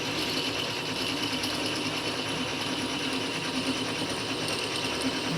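Metal lathe running, a steady mechanical whir with a few constant tones in it.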